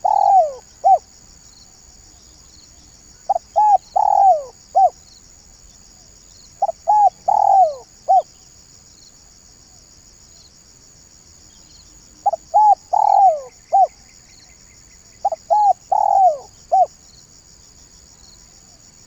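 Spotted dove (tekukur) cooing its 'banggo bocor' song: five phrases of four or five short coos, each phrase about a second and a half long, with a pause of about two to four seconds between them. A steady high insect trill runs behind.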